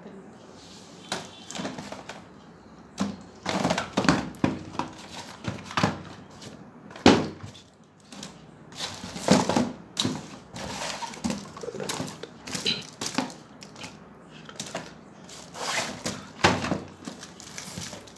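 Firecracker packets of cardboard and paper being picked up, shuffled and set down in a cardboard box: irregular rustling, scraping and light knocks, with one sharper knock about seven seconds in.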